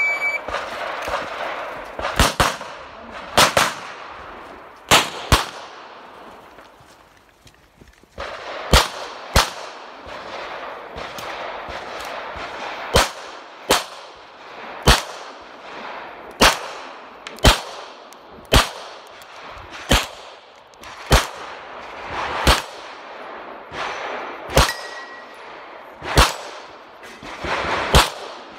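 A shot timer's short start beep, then a 9mm CZ Shadow 2 pistol fired through an IPSC stage: about two dozen shots, many in quick pairs, each with a short echo, and a pause of about two seconds some six seconds in.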